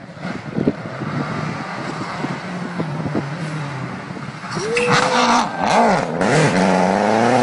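Rally car engine approaching and passing close by at speed, the note rising and dipping through gear changes as it goes past, then climbing steadily as the car accelerates away.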